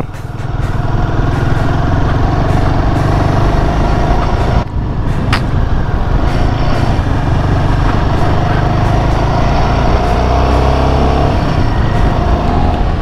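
Royal Enfield Himalayan 450's single-cylinder engine running as the motorcycle rides over a wet gravel road. The sound dips briefly nearly five seconds in, and the engine note rises near the end as the bike speeds up.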